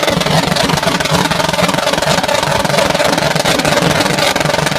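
A loud engine running steadily.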